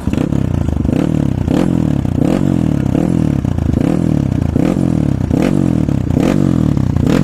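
Kawasaki KLX140 single-cylinder four-stroke dirt bike engine through a Yoshimura titanium exhaust with carbon tip, revved in quick repeated throttle blips, the pitch rising and falling back a little more than once a second, each blip opening with a sharp crack from the exhaust.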